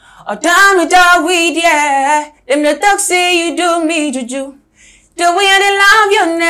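A young man singing unaccompanied in a high voice with vibrato, in three phrases with short breaks for breath between them.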